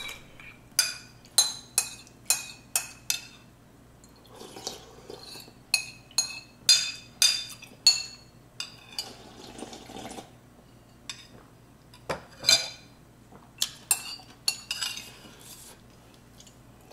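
Metal spoon clinking and scraping against a glass bowl, again and again, as the last of the ramen broth and egg is scooped out; each clink rings briefly.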